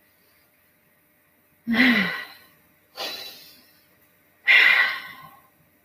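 A woman's three breathy exhalations, like sighs, about two, three and four and a half seconds in, each fading away; the first begins with a short voiced sound.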